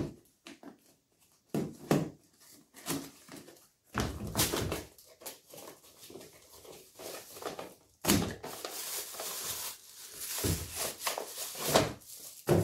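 A cardboard product box being opened and unpacked by hand: cardboard flaps scraping, plastic packaging crinkling and a few knocks of the box on the table, with the longest stretches of rustling about 4 seconds in and from about 8 seconds on.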